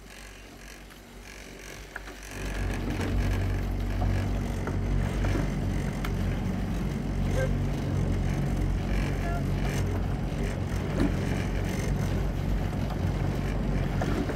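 Outboard motor of a coaching launch running under way. It gets louder about two seconds in, then runs steadily at an even pitch.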